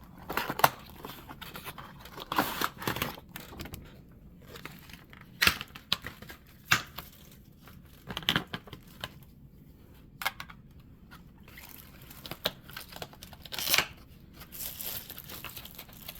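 A model freight car's box and packaging being handled and worked open: irregular clicks, scrapes and crinkling rustles, with a longer rustle near the end.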